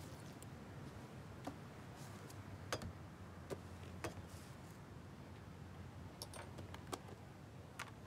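Faint, scattered small clicks and taps of lunch boxes, bottles and food containers being handled, coming at uneven intervals over a low steady room hum.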